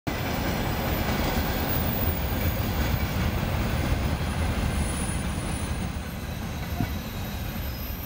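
Freight train of open-top wagons rolling past, a dense steady rumble of wheels on rail that eases slightly in the last couple of seconds.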